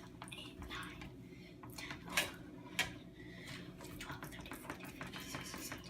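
Lotion pump bottle pressed over and over, squirting into a bucket: a run of soft clicks and squishes, with two sharper ones a little past the middle.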